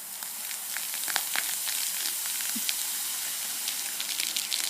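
Mentos-and-soda geyser from a 2-liter bottle of orange soda: a steady fizzing hiss with crackling pops as the foam sprays out, building up over the first second.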